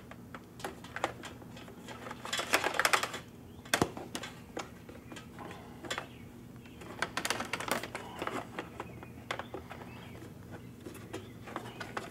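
Electrical wires being fed and pulled through plastic and metal front-end trim: scattered rustling, light clicks and taps, with a sharper click about four seconds in.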